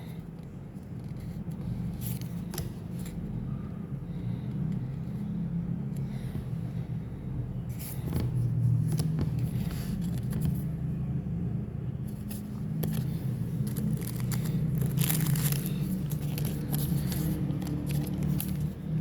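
Trading cards and booster-pack wrappers being handled and torn: scattered short rustles, scrapes and clicks, busiest around eight seconds in and again near fifteen seconds, over a steady low rumble.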